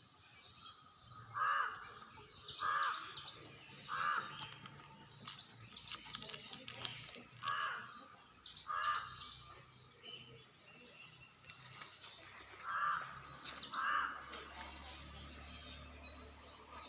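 Birds calling outdoors: a short lower call repeated about seven times, mostly in pairs, with bursts of high, quick chirps and a few short rising whistles over it.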